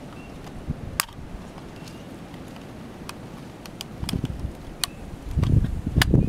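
Disposable camera's plastic casing being unlatched and pried apart by hand: scattered sharp plastic clicks over handling rumble, which gets louder in the last second or so.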